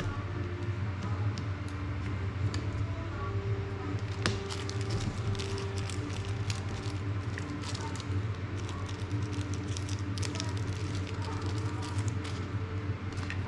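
Clicks and taps of small plastic drone frame parts and tools being handled on a work mat, coming thicker from about four seconds in, over a steady low hum.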